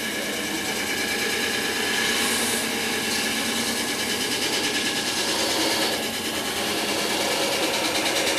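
Wood lathe running with a turning tool cutting a spinning wooden vessel: a steady motor hum under the hiss of the cut, brighter for a moment about two seconds in.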